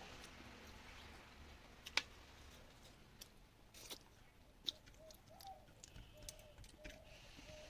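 Quiet scattered clicks and taps of eating by hand from a plate, the loudest about two seconds in. Faint chirping comes in over the second half.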